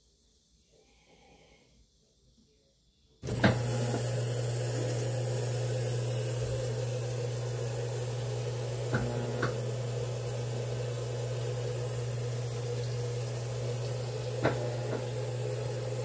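Maytag top-load washing machine starting to fill with water about three seconds in: a sudden steady rush of water with a low hum under it and a few light clicks.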